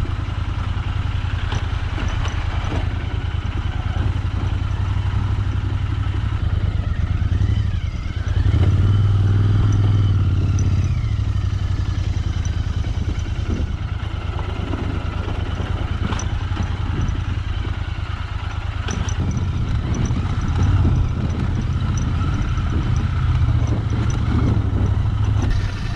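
Royal Enfield Interceptor 650's parallel-twin engine running steadily at low speed in first gear, louder for a few seconds about a third of the way through.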